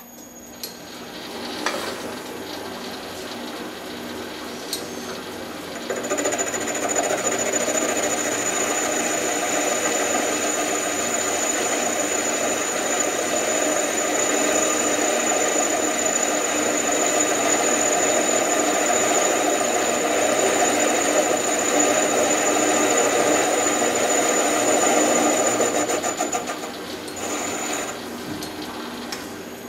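Metal lathe turning a cast aluminium part on a tailstock center: the spindle runs up, and about six seconds in the tool takes a cut, a loud steady cutting noise with a thin high whine over it. The cut lasts about twenty seconds before the sound drops away near the end.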